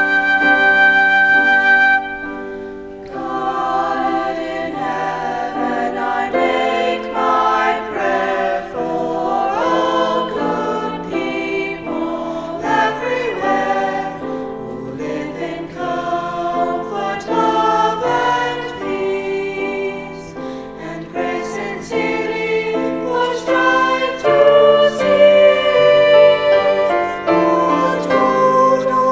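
A flute holds a note that ends about two seconds in. Then a choir sings.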